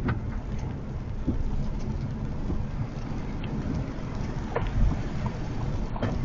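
Rain on a moving Honda HR-V e:HEV, with steady low road and tyre rumble and scattered ticks of drops striking the car.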